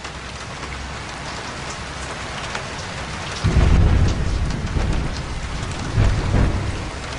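Steady rain, with low rumbles of thunder starting about halfway through and again near the end.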